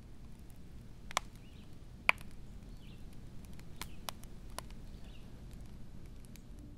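Wood fire crackling in a fireplace: sharp pops at irregular times over a low steady rumble, the loudest pop about two seconds in.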